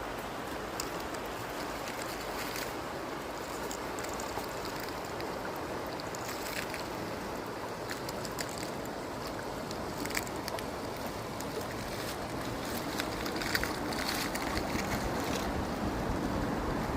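River Wharfe flowing: a steady rush of water with small splashes and ticks, growing slightly louder near the end.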